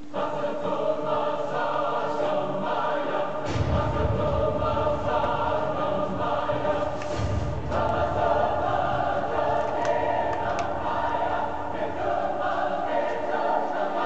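Choral music, voices singing long held chords, starting suddenly. A deep low rumble sounds beneath it for about four seconds in the middle.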